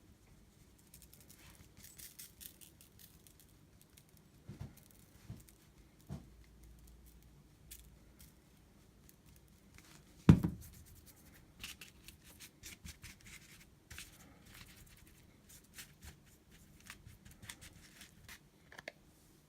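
Scattered small handling sounds, light clicks and scrapes, with one loud thud about ten seconds in.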